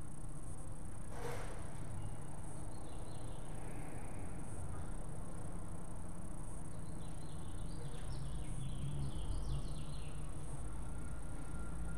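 Quiet room tone with a steady low hum, a brief rustle about a second in, and faint high chirping around four seconds in and again for a few seconds later on.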